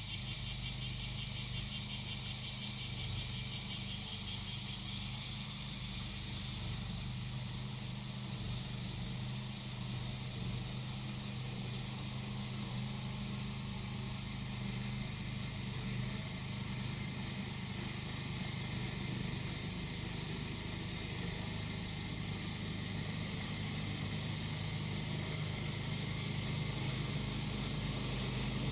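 Small engine of a grass-cutting machine running at a steady speed. Cicadas call over it in a pulsing high buzz, loud for the first several seconds and fainter after that.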